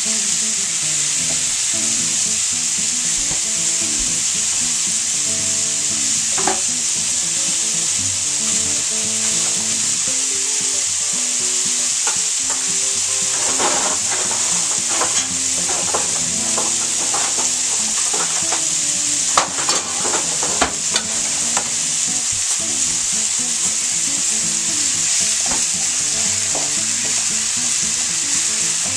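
Ground beef and diced onion sizzling steadily in a frying pan, browning over a gas burner. A spatula knocks and scrapes against the pan several times a little past the middle.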